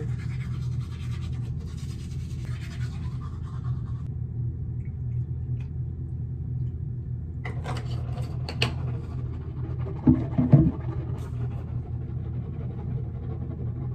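Manual toothbrush scrubbing teeth for the first few seconds, then a few short sharp spritzes of a mouth spray about seven and a half seconds in, and a brief louder sound about ten seconds in, all over a steady low hum.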